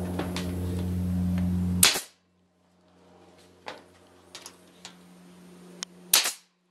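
Pneumatic stapler firing staples through the trailer's metal skin into the wood framing: two sharp shots, about two seconds in and near the end, with a few fainter clicks between them. A steady low hum runs under the first two seconds and cuts off suddenly.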